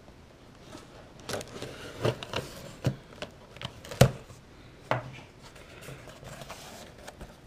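Cardboard shipping box being cut open with a pocket knife and its taped flaps pulled open. It makes a run of sharp cardboard knocks, scrapes and rustles, starting about a second in and loudest about four seconds in.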